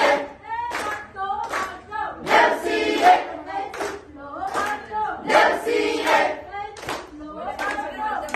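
A crowd singing a Nepali Deusi-Bhailo festival song together in short phrases, with hand claps keeping the beat.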